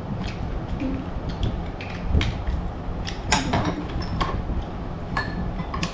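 Spoons and china bowls clinking now and then, a few short sharp clicks over a steady low hum.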